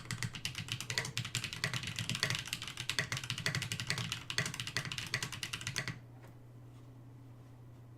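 Typing on a Rama M65-A mechanical keyboard with lubed 78g Holy Panda tactile switches and doubleshot keycaps: a fast, steady patter of keystrokes that stops about six seconds in, leaving only a faint low hum and a couple of soft ticks.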